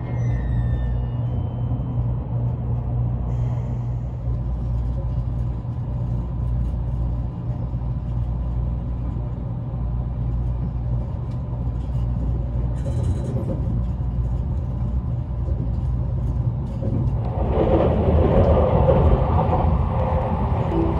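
Steady low running rumble inside the cabin of a JR Kyushu 787 series electric train in motion. About 17 seconds in, the running noise grows louder and rougher.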